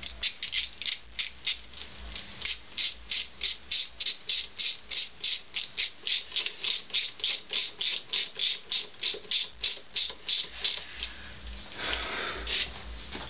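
Ratchet wrench clicking steadily, about three to four clicks a second, stopping about eleven seconds in, then a brief rustle.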